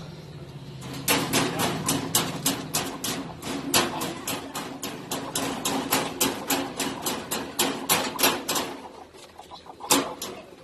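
Rapid sharp clicking, about five or six clicks a second for some seven seconds, with two more clicks near the end.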